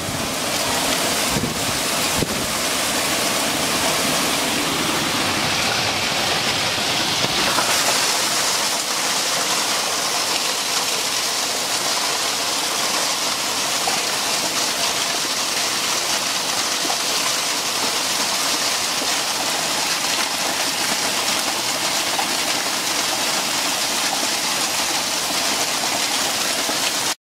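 Pea-sized hail and heavy rain pouring down on trees, ground and yard, a loud steady hiss. Wind gusts buffet the microphone in the first couple of seconds, and the hiss turns sharper about seven seconds in.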